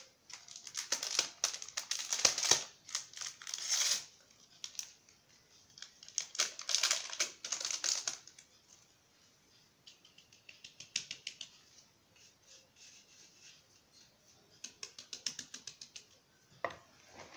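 Plastic kitchen sieve shaken over a mixing bowl, sifting flour and cocoa: two spells of quick rattling ticks, the first about three and a half seconds long and the second about two, then fainter, sparser ticks.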